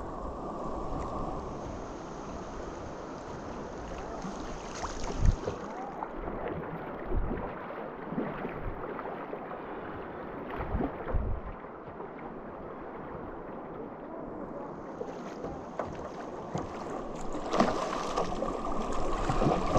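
River current rushing around an inflatable kayak, with paddle strokes splashing in the water and scattered low thumps. The rush grows louder near the end as the boat runs through rougher water.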